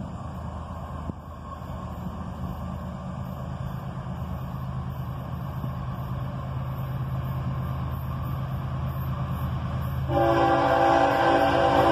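Approaching GE ES44AH diesel locomotive: a low engine drone builds steadily louder, then its air horn sounds a chord of several notes about ten seconds in.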